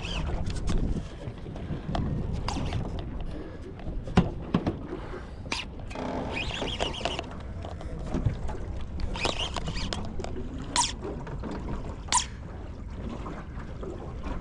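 Water slapping and sloshing against an aluminium boat's hull with wind rumbling on the microphone, broken by several sharp clicks and knocks.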